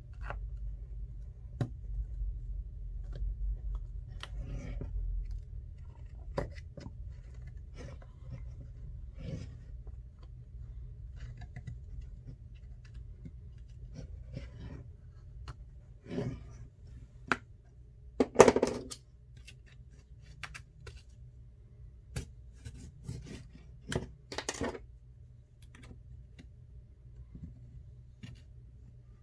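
Small clicks and scrapes of a pry tool working into the seam of an iPhone XR to open the screen, irregular and scattered, with a louder, longer scrape about eighteen seconds in.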